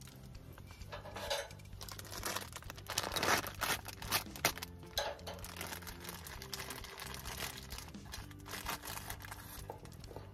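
Soft background music with irregular crinkling and rustling of plastic packaging being handled, and a few light knocks.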